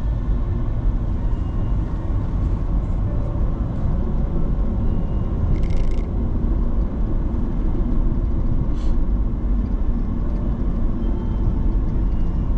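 Car driving along a city road: a steady low rumble of engine and road noise, with a brief hiss about six seconds in and another, fainter one near nine seconds.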